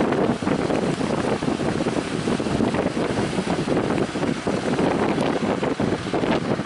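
Strong wind buffeting the microphone over the noise of a boat and breaking waves at sea.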